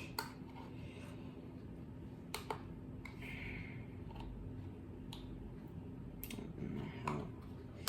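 Scattered sharp plastic clicks as a solar garden light is handled and its battery compartment is tried by hand, which will not open without a screwdriver.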